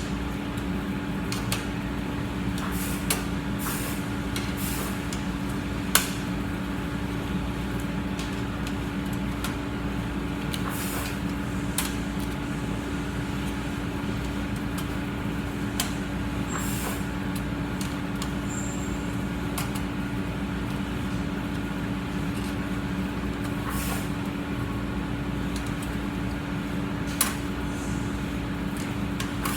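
Welding arc running steadily: an even buzzing hiss broken by a few sharp crackles and pops.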